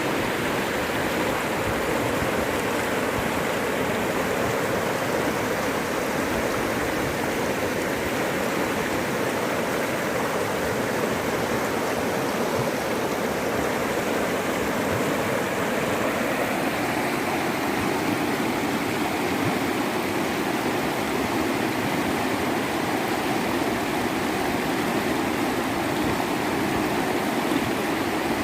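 Rushing floodwater: a steady, unbroken rush of a swollen river in spate.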